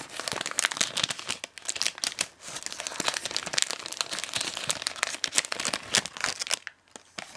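Plastic film wrapper of a convenience-store rice ball crinkling and crackling as it is pulled and torn open by hand, dying away near the end.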